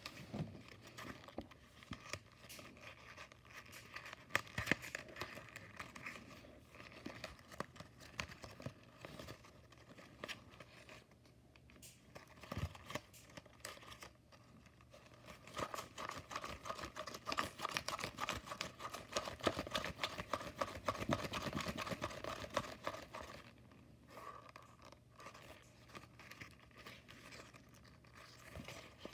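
Folded paper of an origami cube flasher crinkling and rustling as hands twist and refold it, a run of small crackles and scratches, louder and busier for several seconds past the middle.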